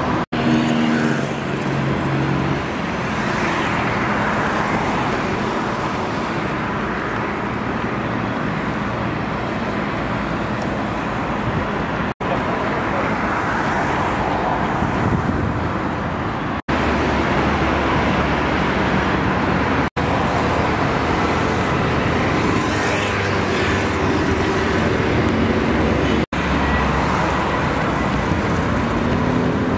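Motor vehicle engine running close by, with steady road and traffic noise. The sound cuts out abruptly for an instant several times.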